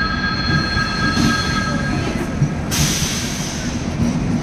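Passenger coaches of a departing train rolling past with a steady rumble of wheels on rail. A high-pitched wheel squeal carries on until about two seconds in. A loud hiss starts just before three seconds in and lasts over a second.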